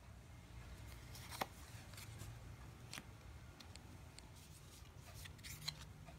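Faint handling of playing cards on a tabletop: a few light taps and clicks of cards being picked up and set down, the sharpest about a second and a half in and another near the end, over a low room hum.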